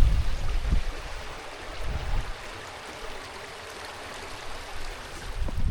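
Stream water running steadily over rocks, with wind rumbling on the microphone in the first second and again near the end.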